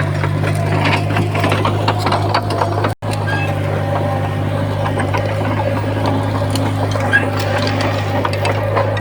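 Komatsu D51PX bulldozer's diesel engine running with a steady low drone under busy clicking and rattling of its working machinery, with a brief dropout about three seconds in.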